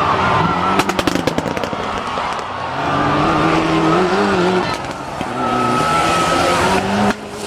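Mitsubishi Lancer Evolution IX rally car's turbocharged four-cylinder engine revving hard, its pitch rising and falling through the gears, with a quick burst of cracks from the exhaust about a second in.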